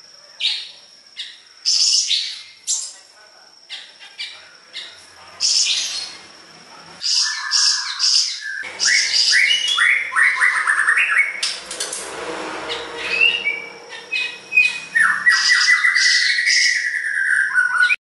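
Caged siri-siri songbird singing gacor (vigorously): a string of short, sharp high calls, then from about halfway a busier run of whistled phrases with falling and rising notes.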